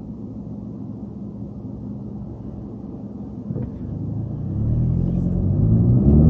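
Car engine and road noise inside the cabin: a steady low drone, then from about four and a half seconds in the engine note rises in pitch and gets louder as the car accelerates.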